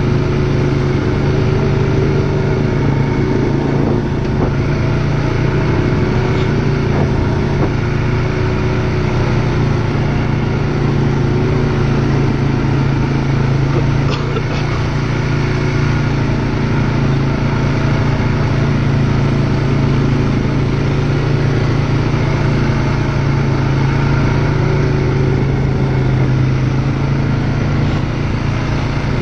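ATV engine running steadily throughout, a constant drone with no clear revving.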